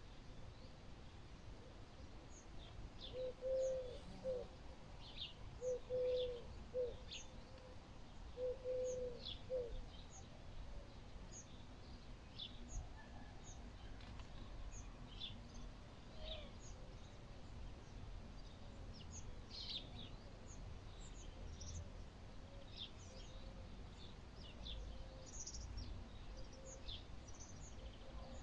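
Outdoor ambience of small birds chirping: short high chirps scattered throughout, over a steady low background rumble. A lower, louder call comes about four times in the first ten seconds, then fades to faint repeats.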